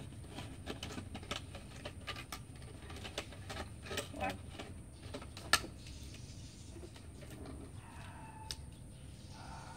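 Scattered light clicks, taps and rustles of hands working at the ground while gardening, with one sharper click about halfway through.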